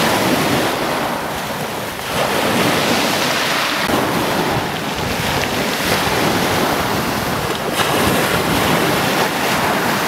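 Wind buffeting the microphone over the rush of sea waves, a steady noisy roar that swells louder about two seconds in.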